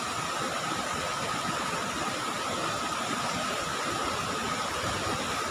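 Flooded river rushing past in a steady, even stream of noise: fast, muddy floodwater running after heavy rain.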